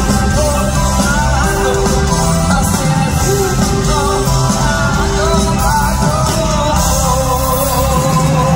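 Live rock band playing, with drums and a male lead vocal singing sustained lines.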